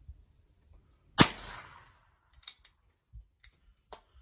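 A single gunshot from a Marble Game Getter combination gun about a second in, a sharp crack with a short echo trailing off. Several much fainter sharp cracks follow near the end.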